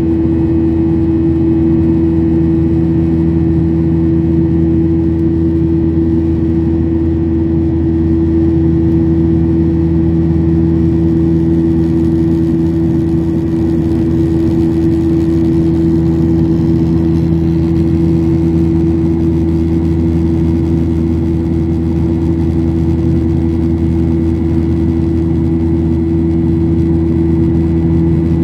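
Steady cabin drone of a Boeing 737-800 heard from a window seat: the CFM56-7B jet engines and rushing air make a loud, even rumble with a few steady hum tones on top, unchanging throughout.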